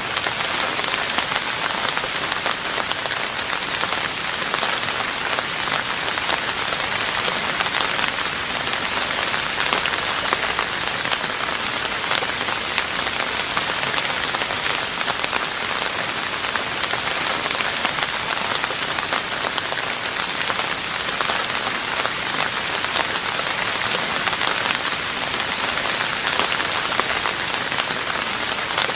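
Steady rain falling on a roof, a dense even patter of many drops.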